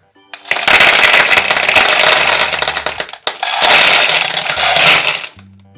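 Gumballs pouring out of a clear cube into a plastic bowl: a loud clattering rattle of many small hard balls tumbling and striking, in two pours with a brief break about three seconds in.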